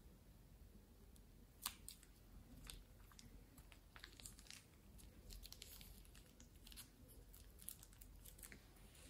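Faint crinkling and scattered small clicks from a plastic piping bag being squeezed as green slime is piped onto foam beads, with one sharper click about one and a half seconds in.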